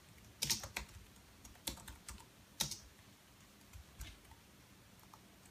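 Typing on a computer keyboard: light, irregular keystrokes in short runs, with pauses between them.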